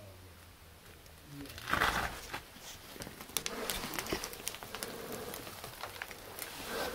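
Scattered clicks, crunches and scrapes of footsteps and gear moving on loose rock, with a short rush of noise about two seconds in.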